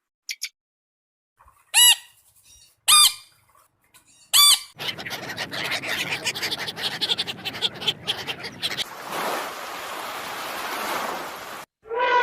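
Animal calls: four short, loud, shrill squawks a second or so apart, then rapid chattering for a few seconds, then a steady hiss that cuts off suddenly.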